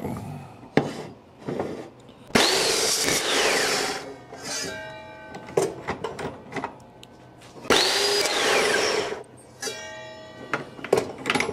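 Evolution metal-cutting chop saw run twice in short bursts on steel square tubing: each time the motor whines up quickly, then winds down with a falling, ringing tone. Sharp clanks of the steel stock being handled and clamped come between the runs.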